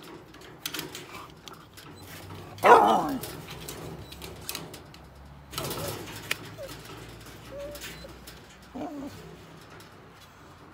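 Dogs barking and whining at the chickens: one loud bark-yelp about three seconds in, then quieter yelps and whines further on.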